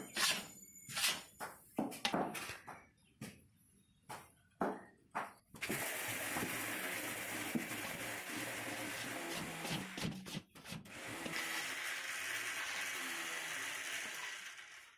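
Metal spatula scraping and pushing a thick milk-powder burfi dough around a steel pan, in separate strokes about once or twice a second. About five and a half seconds in, a steady hiss takes over and runs almost to the end, with a short break near ten and a half seconds.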